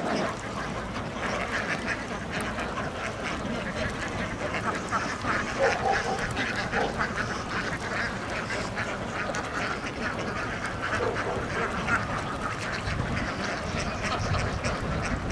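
A large flock of white domestic ducks quacking continuously, with many calls overlapping into a steady clamour.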